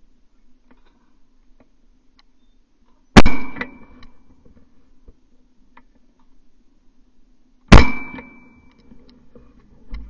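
Two sharp metallic clangs, about four and a half seconds apart, each leaving a brief high ring, over a faint steady hum.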